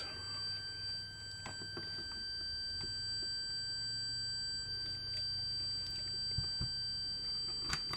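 Fluke 37 multimeter's continuity beeper giving one steady, unbroken high-pitched tone: the meter is still registering continuity through the 40-ohm resistance, which is below its beep threshold. A few faint clicks sound alongside.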